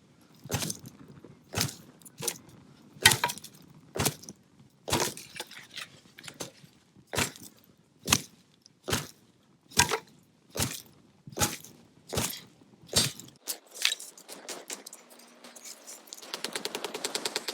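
A long series of sharp knocks, about one a second, stopping about thirteen seconds in; near the end a fast, dense rattling begins.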